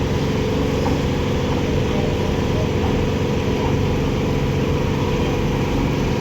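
Heavy diesel engine of a construction machine running steadily at a constant speed.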